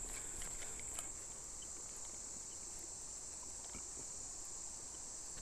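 Steady high-pitched insect chorus, an even drone with no break, and one faint click about a second in.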